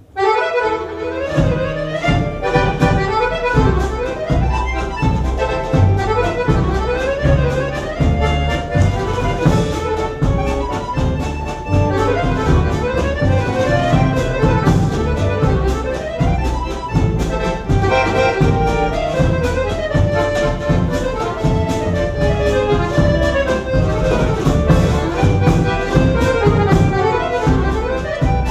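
Accordion playing a valse musette melody, backed by double bass and a drum kit with steady cymbal strokes; the music begins abruptly at the opening.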